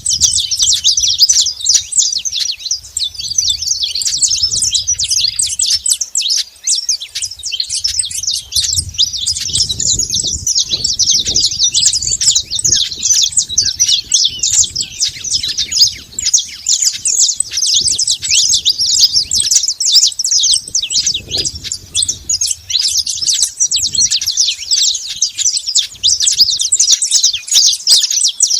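Saffron finch chirping and singing in a rapid, unbroken stream of high, quick notes.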